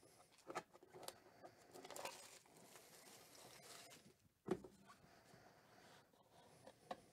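Faint handling of a shrink-wrapped cardboard card box: light rustles and taps as it is tilted and turned over, then a single thump about four and a half seconds in as it is set down. A couple of small clicks near the end.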